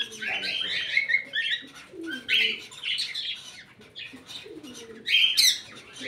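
Cockatiels chirping and calling in repeated short bursts, with a louder, shriller call about five seconds in.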